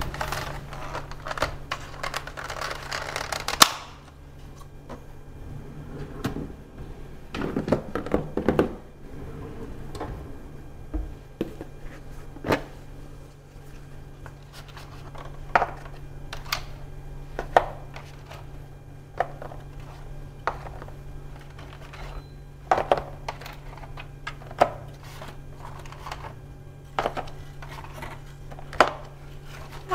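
Eggs being handled out of a plastic egg carton and set into a clear plastic egg container on a stone countertop: plastic rustling and shuffling at first, then a string of light clicks and taps, one every second or two. A steady low hum runs underneath.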